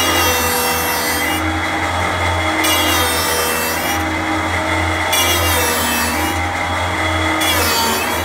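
Three-axis CNC wood lathe turning a wooden workpiece: a steady motor hum under a cutting noise that comes and goes in spells of about a second and a half, four times, as the tool moves in and out of the wood.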